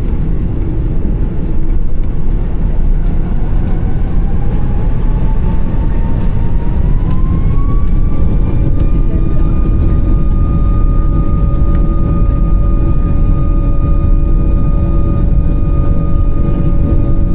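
An Airbus A340-600's Rolls-Royce Trent 500 engines heard from inside the cabin, spooling up to takeoff thrust. A whine rises in pitch over the first eight seconds or so, then holds steady over a loud low rumble.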